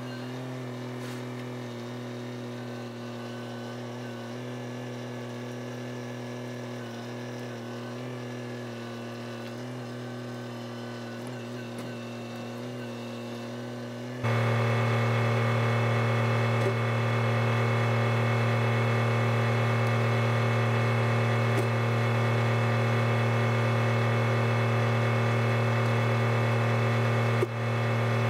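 Kubota tractor's diesel engine running steadily at a constant speed. About fourteen seconds in it turns suddenly much louder, with no change in pitch.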